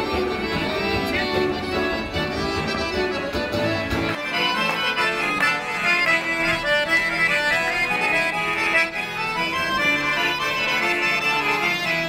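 Piano accordion playing a lively folk dance tune in quick running notes. A bass line sounds underneath for about the first four seconds, then drops away suddenly, leaving the accordion's melody on its own.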